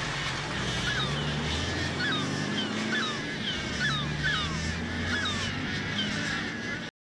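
A flock of birds calling, short falling calls about one or two a second, over a low rumble and low sustained notes. It cuts off abruptly near the end.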